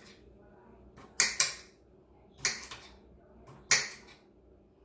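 A kitchen knife slicing through a cucumber onto a cutting board: three crisp chops a little over a second apart, the first a quick double.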